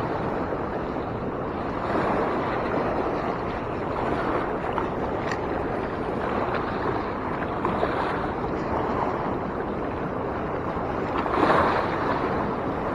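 Fast-flowing river water rushing steadily, an even wash of noise that swells slightly near the end.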